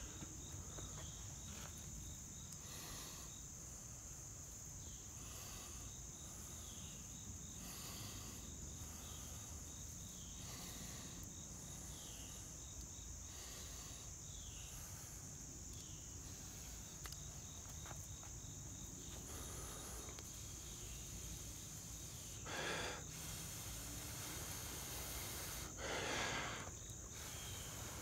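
Breath blown into a pine-needle tinder bundle holding a hand-drill ember to bring it to flame: soft puffs every two to three seconds, then two stronger blows near the end. A steady high cricket drone runs underneath.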